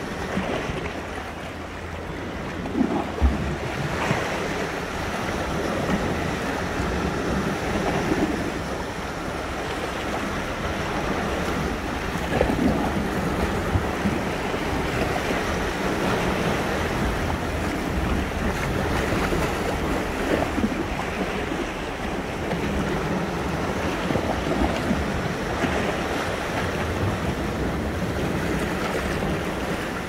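Sea waves washing and breaking on the shore, a steady rushing surf that swells and eases, with wind noise on the microphone.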